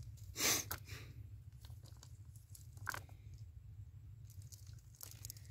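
Hands working through a cast net on dry ground strewn with small shells: scattered crunches and rustles, loudest about half a second in and again near three seconds, over a steady low rumble.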